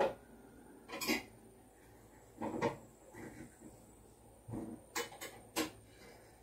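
A few faint, scattered knocks and clicks, about seven in all, several close together near the end, over a faint steady high whine.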